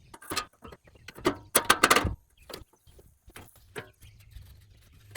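Irregular knocks, clicks and rattles of metal chair-frame parts being handled and fitted together, with a louder cluster of clatter about one and a half to two seconds in.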